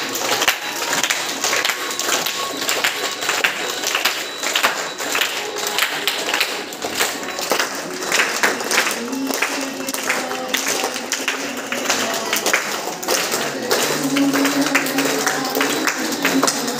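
Many children clapping their hands, with music and children's voices singing along.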